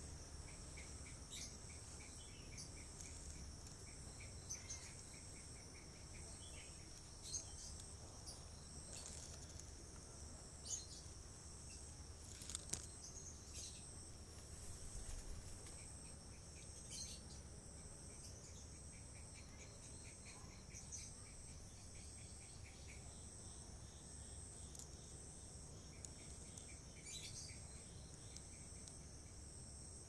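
Faint steady high-pitched drone of insects, with a rapid ticking trill coming and going lower down. A few short sharp chirps or clicks stand out, the loudest about halfway through.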